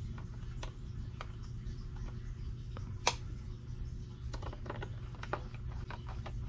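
Light clicks and ticks of a small screwdriver and screw against the metal case of an SWR/watt meter as a bottom screw is driven in, with one sharper click about three seconds in and a quick run of clicks a little after four seconds. A steady low hum runs underneath.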